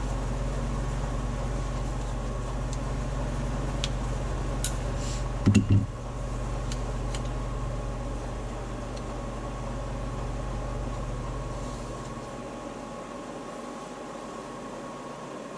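Metal lathe running steadily with a low hum and a few steady tones while a tube is turned down, with a couple of short knocks about five seconds in. Near the end the hum fades away.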